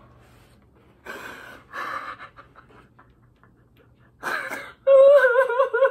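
A person gasping and breathing hard with emotion, then, about five seconds in, breaking into a loud wavering whimpering sob.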